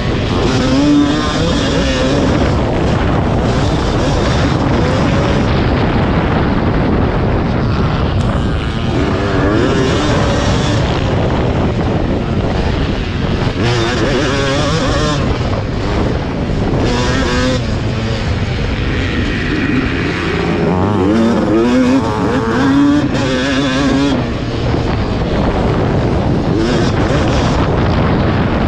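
1991 Yamaha WR250 two-stroke engine under race load, revving up and falling back over and over as the rider works the throttle and gears.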